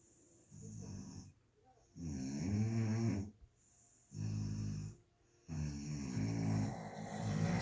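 A person snoring loudly: four snores, each about one to one and a half seconds long, with short quiet gaps between them; the last one starts about five and a half seconds in and runs on longer.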